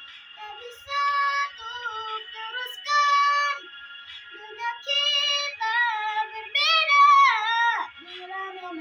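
A girl singing a slow, melodious ballad in short held phrases with brief gaps between them. The longest phrase, about seven seconds in, is held with a wavering vibrato and then slides down in pitch.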